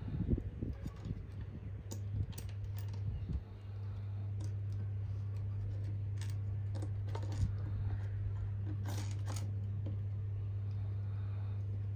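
Small plastic building bricks clicking as they are handled and pressed together: a few sharp, irregular clicks, with low rustling of the hands early on. A steady low hum sets in about a third of the way through and stays.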